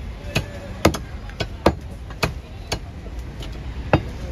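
Butcher's cleaver chopping goat meat on a wooden tree-trunk chopping block: a run of sharp chops, about two a second, with a short pause before a last chop near the end.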